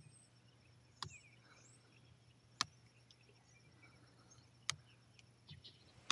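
Side cutters snipping plastic cable ties: three sharp, separate snips spaced a second and a half to two seconds apart, then a few lighter ticks near the end. Faint bird chirps in the background.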